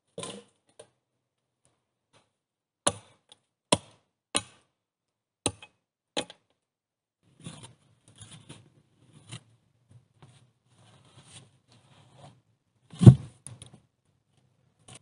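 Five sharp chopping blows on wood, about a second apart, then a shovel scraping and digging in sandy soil. Near the end comes a heavy thud, the loudest sound, as a wooden post drops into its hole.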